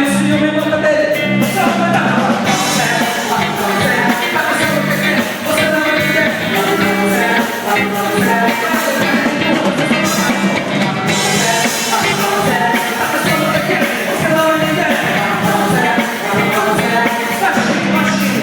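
Live worship band playing a praise song with voices singing over it, loud and continuous, with a steady bass line underneath.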